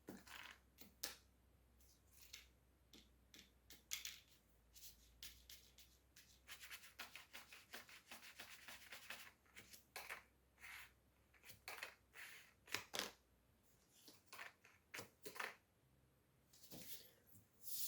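Faint rubbing and scraping of paper being handled and creased, in many short, irregular strokes.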